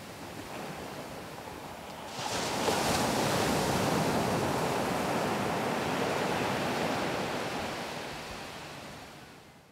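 Surf washing up a sandy beach: a steady hiss of waves that swells sharply about two seconds in as a wave rushes up the sand, then fades away near the end.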